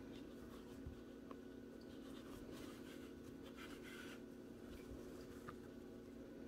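Faint scratchy rubbing of hands and yarn against a crocheted acrylic-yarn toy as a yarn needle sews its trunk on, most noticeable between about two and four seconds in, over a steady low hum.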